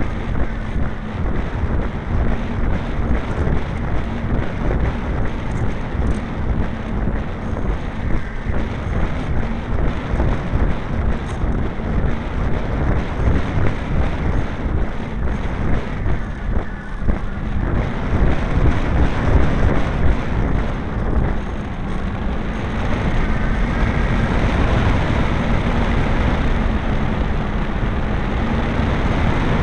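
Engine of a radio-controlled Piper model plane running steadily in flight, heard from an onboard camera with heavy wind rushing over the microphone. The engine note sags a little midway and picks up again, louder, about three-quarters of the way through.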